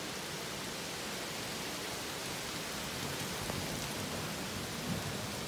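Steady hiss of rain falling during a thunderstorm. In the last second or two a low rumble of thunder begins to build.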